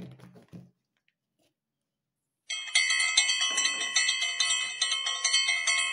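Bright, bell-like chiming jingle, the sound effect of a like-and-subscribe pop-up animation, starting about two and a half seconds in with quick repeated chime strikes.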